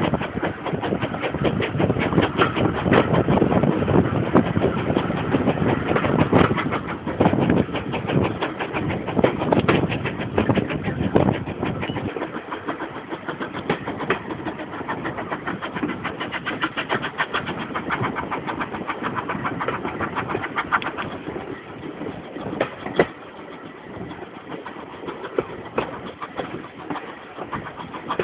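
Steam locomotive 813, an 0-6-0 saddle tank, working its train, heard from a carriage behind it as a fast, steady run of exhaust beats mixed with running noise. Louder for the first dozen seconds, then quieter.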